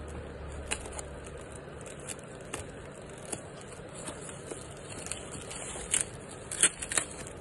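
Scissors snipping through a plastic courier bag, with the plastic crinkling as it is handled: a handful of short, sharp snips and crackles at irregular intervals.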